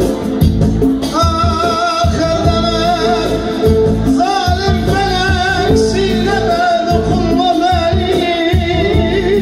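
Kurdish wedding music played loud through a PA: a singer holding long, ornamented, wavering notes over a band with a steady beat.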